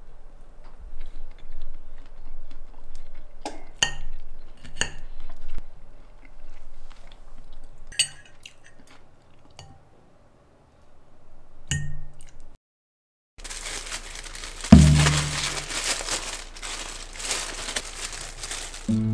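Cutlery clinking against dishes at a meal: a handful of sharp, separate clinks a few seconds apart. After a brief break of silence comes a steady rushing noise with a heavy thump near its start.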